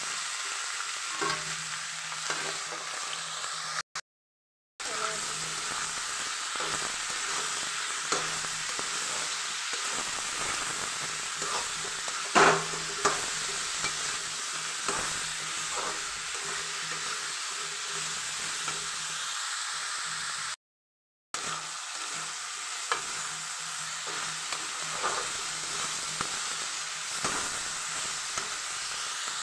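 Potato and cauliflower pieces sizzling as they fry in oil in a pan, with a metal spatula scraping and knocking against the pan now and then as they are stirred. The sizzle drops out briefly twice, at about 4 and 21 seconds.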